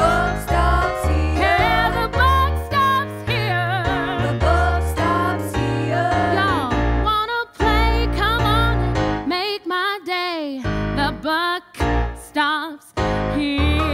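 Female singer belting a country-flavoured musical-theatre song with wide vibrato on held notes, over a band with a heavy bass line. In the second half the band breaks into short stops under the voice.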